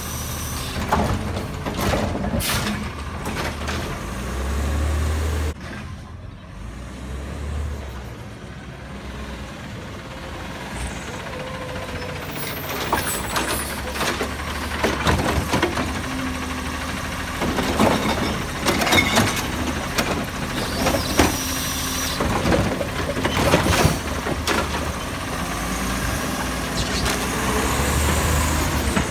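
LNG-powered Autocar ACX automated side-loader garbage truck at work: the engine running while the hydraulic arm grabs, lifts and dumps carts with repeated knocks and bangs, and the air brakes hiss as the truck stops and moves between carts.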